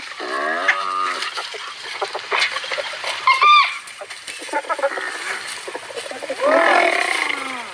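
Spotted hyenas calling: a quick run of falling cries near the start, then short high squeals and yelps that rise and fall in pitch, several overlapping near the end.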